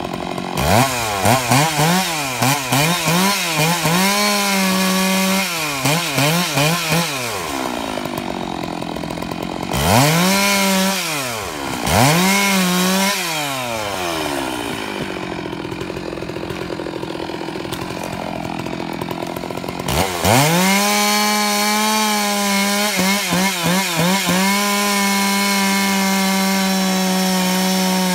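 Two-stroke gas chainsaw cutting into a red oak trunk. For the first several seconds the engine is revved up and down in short repeated bursts, then it drops to idle. It revs twice more around ten and twelve seconds in and idles again, then about twenty seconds in it runs up to full throttle and holds steady, cutting wood.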